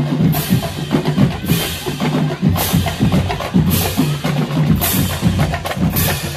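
Marching band drumline playing on the march: snare drums rattling over bass drums, with a cymbal crash about once a second.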